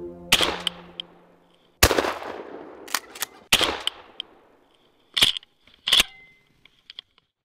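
A turkey hunter's shotgun fired at a strutting Merriam's turkey: several sharp reports, the loudest trailing off in long echoes. Music fades out about two seconds in.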